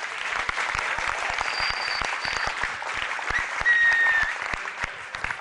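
Studio audience applauding: dense, steady clapping that eases off a little near the end.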